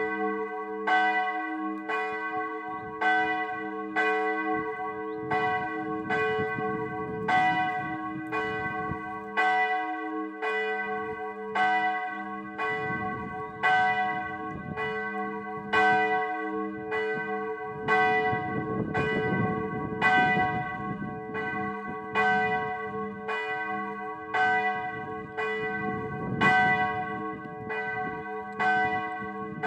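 A single church bell tolling steadily, about one stroke a second. Each stroke rings on under the next.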